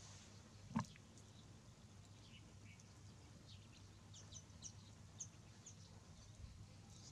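Near silence, broken by a single soft knock a little under a second in, then faint, short high chirps.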